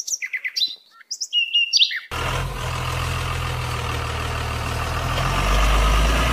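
Small birds chirping in quick high calls for about two seconds, then an abrupt switch to a steady truck engine idling with a deep hum, which grows somewhat louder near the end.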